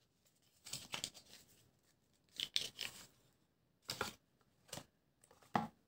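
Paper or card being handled: about five short rustles spread over a few seconds.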